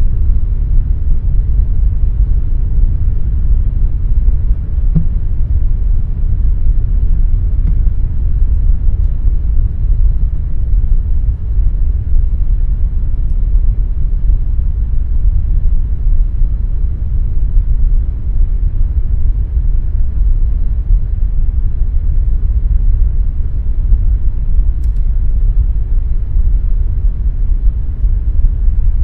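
Air conditioner running steadily: a constant, deep rumbling hum with little high hiss.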